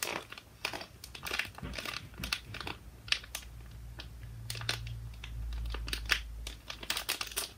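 Soft plastic packaging bag crinkling and crackling in quick irregular bursts as it is handled and picked open by hand. A low rumble sits underneath through the middle.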